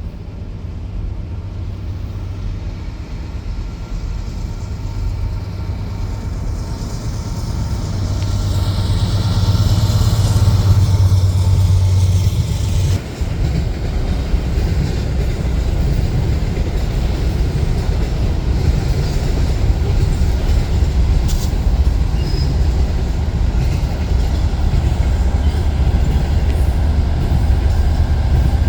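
A train passing close by. Its low, steady rumble grows louder over the first ten seconds or so, dips briefly, then runs on loud and even.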